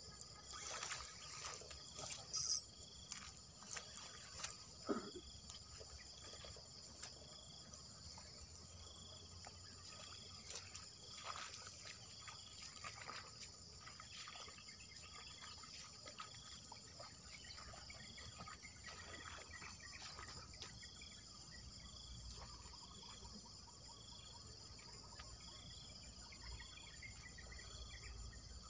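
Faint, steady high-pitched insect chorus in open grassland, with a short chirp repeating about once a second. A few light clicks and rustles in the first few seconds.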